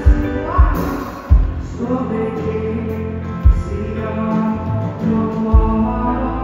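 Live band playing a slow song, a woman singing lead with gliding, held notes over electric guitar and keyboard, with a few heavy kick-drum thumps.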